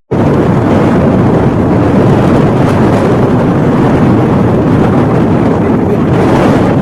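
Loud, steady rush of hurricane-force wind buffeting the microphone, beginning abruptly at a cut.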